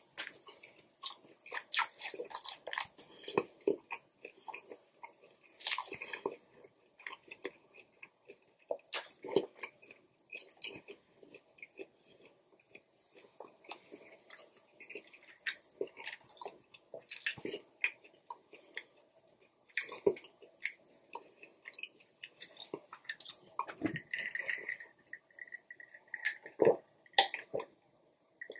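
Close-miked chewing of a mouthful of food: irregular wet mouth clicks and bites.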